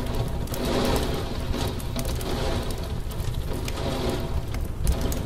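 Heavy rain beating against window glass: a dense, steady hiss of rain with many sharp drop hits and a low rumble underneath.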